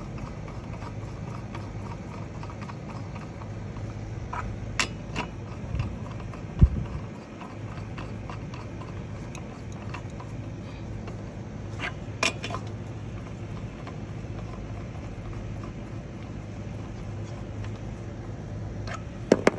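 A few sharp metallic clicks, several seconds apart, and one dull knock as a socket is fitted onto and turned on chrome lug nuts by hand, over a steady low hum.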